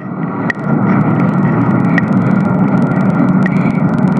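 Radio static: a steady rushing hiss thick with crackles, swelling up over the first half second, with a short high pip repeating about every one and a half seconds.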